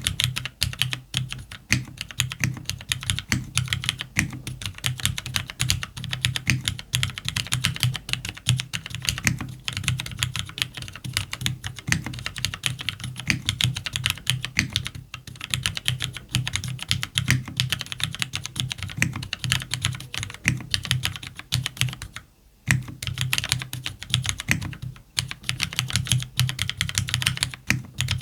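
Continuous fast typing on a CannonKeys Devastating TKL mechanical keyboard with linear Cherry MX Black switches, an FR4 plate, lubed stabilizers and JTK keycaps, each keystroke a deep clack. The typing stops briefly about 22 seconds in, then resumes.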